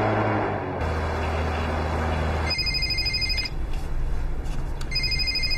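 Low sustained notes of a drama score end about two and a half seconds in. A mobile phone then rings twice: each ring is a burst of high, pulsing electronic tones just under a second long, and the two rings are about two and a half seconds apart.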